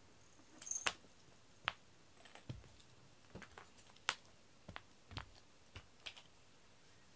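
Cat teaser wand being flicked and tapped about, giving about a dozen sharp, irregular taps and clicks, the loudest about a second in and about four seconds in.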